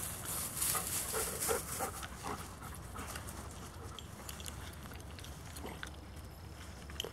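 Dogs moving along a grass trail, with a cluster of short dog sounds in the first two seconds, the loudest part. After that come quieter rustling and scattered short ticks.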